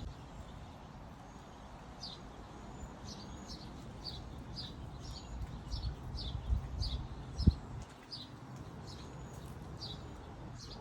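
A bird chirping over and over, short high notes that slide downward, about two a second. Low rumbling background noise runs underneath, and a single thump comes about seven and a half seconds in.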